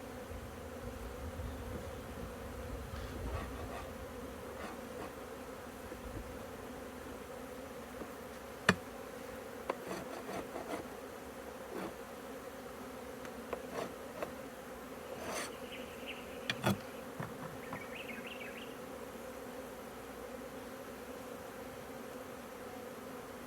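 Honeybees buzzing steadily at the hive, a continuous hum. Scattered clicks and knocks sound through the middle stretch, the loudest a sharp knock about nine seconds in.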